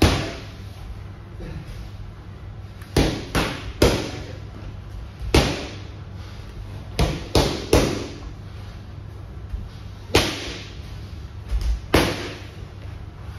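Boxing gloves striking focus mitts: about a dozen sharp smacks, thrown singly or in quick combinations of two or three, with short pauses between.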